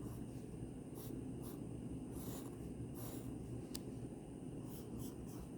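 A drawing tool scratching on paper in short, irregular strokes, as trees are sketched in.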